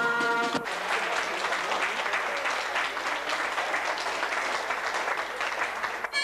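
A crowd applauding, after a short tail of brass music that cuts off about half a second in.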